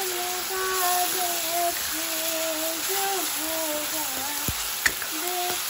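A voice singing a tune over the steady sizzle of onion-tomato masala frying in oil in a kadai, with one sharp knock near the end.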